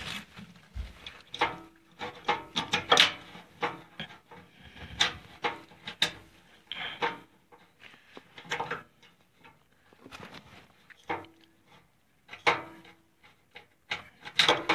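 Irregular small clicks, taps and scrapes of a screw and metal parts being handled and fitted by hand inside a furnace while a replacement capacitor is mounted.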